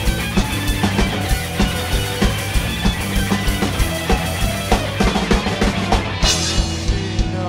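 Live rock band playing with electric guitars, bass and a drum kit keeping a steady beat, with a bright crash a little after six seconds in.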